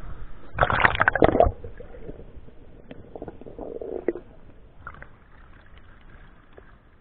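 Shallow river water splashing and sloshing as a hand reaches under the surface: a loud splash about a second in, lighter sloshing a few seconds later, then fading. A rusty metal object is lifted out with water streaming off it.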